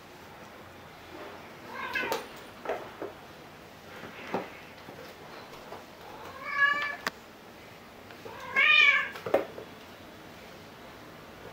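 A cat meowing three times, the first faint and the last the loudest, with a few short knocks in between.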